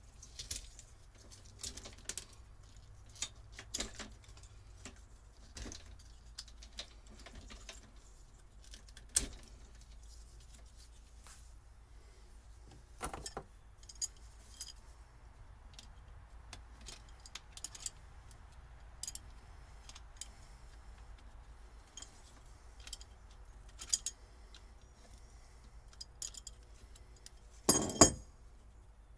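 Scattered small clicks, clinks and rattles of hands working on an old boat's fuse panel and wiring, which holds old glass fuses. A louder rattle comes about a second before the end.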